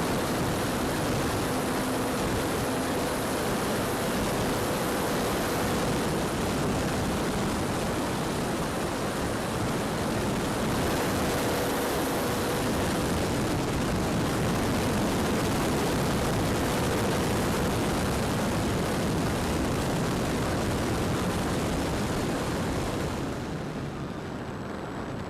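Wind rushing over the microphone, with the faint drone of the E-flite Valiant's electric motor and propeller coming and going underneath. The rush eases off near the end.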